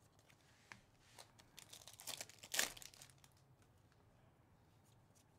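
Thin plastic trading-card packaging crinkling and crackling in the hands while baseball cards are handled. It comes as a run of short crackles, loudest about two and a half seconds in, then dies away.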